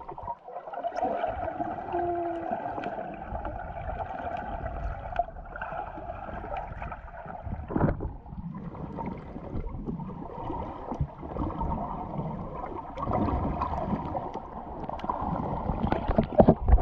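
Muffled underwater water noise with gurgling during snorkeling. A few sharp splashes come near the end.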